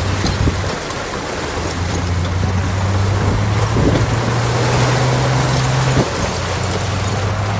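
Heavy diesel engine of earthmoving machinery running under load over a broad mechanical rumble. Its note rises about four seconds in and drops back about two seconds later.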